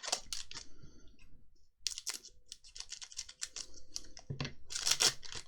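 Paper trading cards being handled and flicked through: quick, irregular clicks and rustles of card stock sliding against card stock, with a louder rustling cluster near the end.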